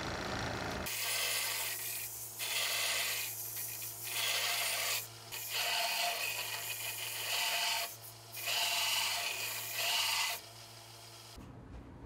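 Small bench belt sander running with a steady motor hum while a bicycle's metal bottom bracket shell is pressed against the belt in about five grinding passes with short pauses between, to clean up the shell. The grinding stops near the end while the motor hums on briefly.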